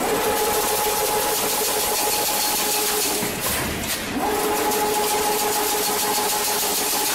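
Chain-link fence weaving machine running, its motor making a steady whine over mechanical noise. The whine stops about three seconds in, a few faint knocks follow, and about a second later it rises back up to speed as the next weaving cycle begins.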